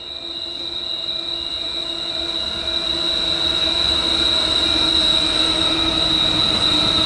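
Diesel-hauled freight train approaching, its locomotives growing steadily louder, with a steady high-pitched squeal throughout.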